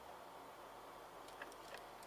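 Near silence: faint steady room hiss, with a few light clicks about one and a half seconds in.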